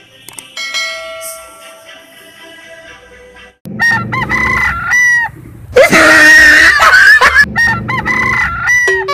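A bright chime rings out and fades over the first three seconds. Then chickens call in short repeated bursts, and a rooster gives one long, loud crow about six seconds in.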